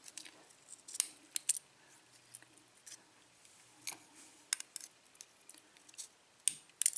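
Light, scattered metallic clicks and ticks of a pin-tumbler cylinder lock's pins, springs and housing being handled with small tools while it is taken apart, about ten clicks, some in quick pairs.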